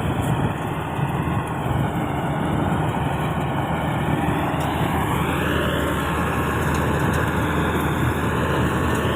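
Rice combine harvester running at working speed, its engine note dipping and rising again about five seconds in, as it unloads grain into a tractor trolley.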